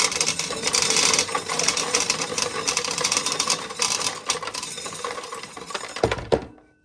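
Corn sheller shelling ears, a dense, continuous rattle and clatter of kernels falling into a 5-gallon pail. It stops a little after six seconds in with two heavy knocks.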